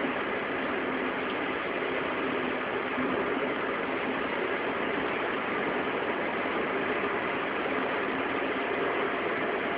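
Car wheel hub making an abnormal steady drone, heard along with the car's running noise. The sound shows a fault in the hub, typical of a worn hub bearing.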